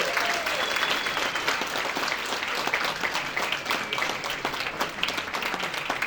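Crowd applauding, a dense steady clapping of many hands.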